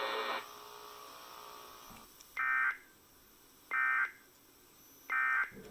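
Emergency Alert System end-of-message signal: three short, identical bursts of warbling digital data tones about a second and a half apart, marking the end of the broadcast alert.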